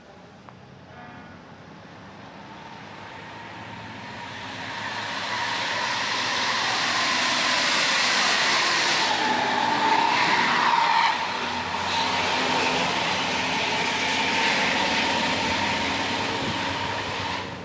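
Diesel bus with a 'jet' exhaust modified with a narrowed tip, giving a high-pitched 'wenggggg' whine. The whine grows louder over the first several seconds, then holds, with a brief dip about 11 seconds in and a slight fall near the end.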